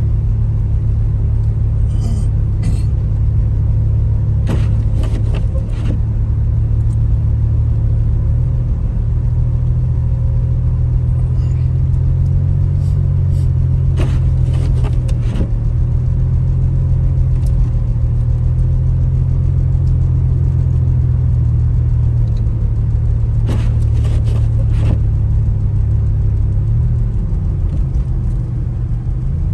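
Steady low rumble of a car on the move, with a few short knocks and clicks scattered through it.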